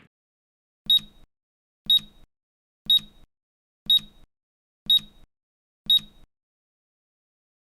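Countdown timer alarm beeping six times, about once a second, in short high-pitched beeps that signal the countdown has ended.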